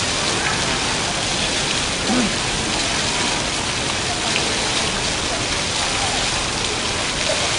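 Water from a digital water-curtain fountain pouring down in many thin streams and splashing below, a steady rain-like patter.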